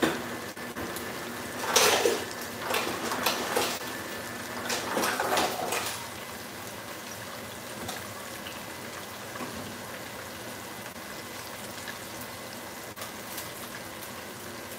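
Thick pork chops shallow-frying in a skillet of oil, a steady crackling sizzle. A louder rush of hissing noise runs from about two to six seconds in.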